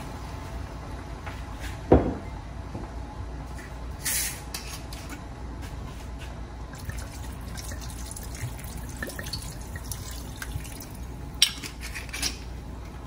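Red wine poured from a bottle into a wok of vegetables, the liquid splashing and dripping into the pan. A single loud knock about two seconds in, and two sharp clicks near the end.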